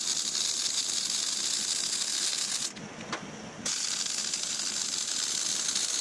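Wire-feed (MIG) welder arc crackling steadily while welding a steel frame rail. The arc stops a little before halfway and starts again about a second later.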